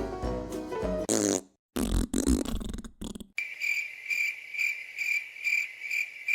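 Background music cuts out about a second in. A fart sound follows: a short buzzy blast, then a longer, lower, rougher one. Cricket chirping then takes over about halfway through, an even, high chirp about three times a second, the stock 'crickets' gag for an awkward silence.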